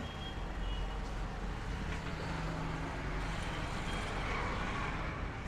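Steady low rumble of road traffic, with a faint brief tone or two over it.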